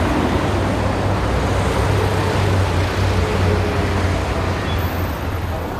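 Steady city street ambience: a continuous wash of traffic noise with a low rumble.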